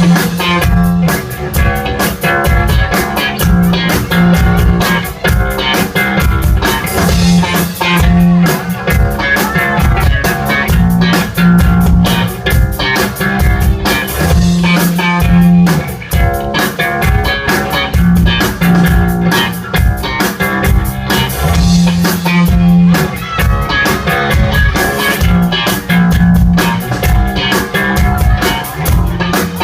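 Rock-style song with guitar over a drum kit keeping a steady beat, in an instrumental stretch without singing.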